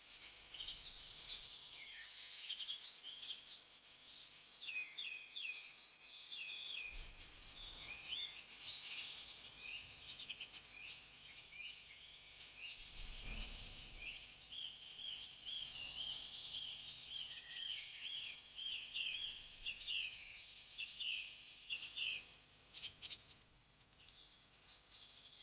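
A chorus of many birds chirping continuously, a dense mix of short, high chirps and trills.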